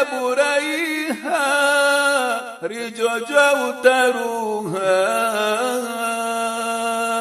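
A man chanting an Islamic devotional poem unaccompanied, in long held notes that waver and bend in ornaments.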